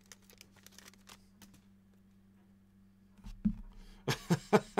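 Trading cards being handled on a table: faint light ticks and rustles at first, then a run of sharper clicks and knocks in the last second and a half.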